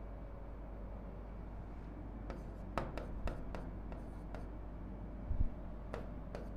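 Marker pen writing on a whiteboard: faint room noise, then from about two seconds in a run of short scratchy strokes as a word is written, with one soft low thump a little after five seconds.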